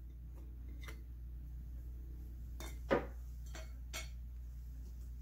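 A few light clicks and knocks of a slotted spatula against a ceramic plate and glass bowl as paste is scraped off onto chicken, the loudest about three seconds in, over a steady low hum.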